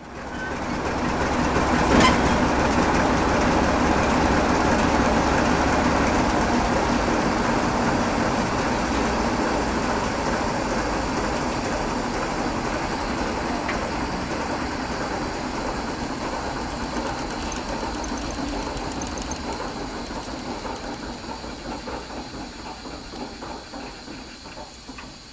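LDE2100 (CFR class 60) diesel-electric locomotive's Sulzer 12-cylinder diesel engine being shut down. It runs loudly at first, with a sharp click about two seconds in, then slowly fades as it winds down, and near the end its strokes come as separate, uneven beats.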